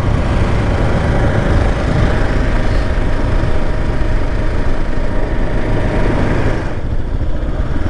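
Single-cylinder dual-sport motorcycle engine running steadily under way on a dirt road, with a rush of wind and road noise that eases a little near the end.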